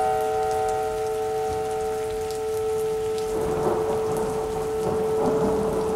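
Synthesized outdoor warning siren held at a steady pitch over rain ambience. About halfway through, its upper tones drop away and a rumble of thunder comes in under the steady siren note.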